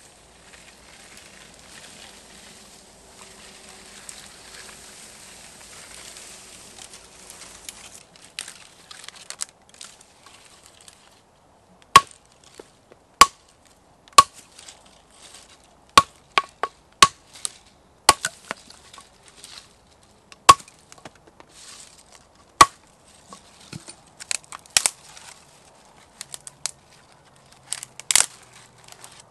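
Soft rustling of footsteps through grass and brush, then, about twelve seconds in, a hatchet chopping branches on a wooden block: about a dozen sharp blows a second or two apart, each with a brief ring, the last few lighter.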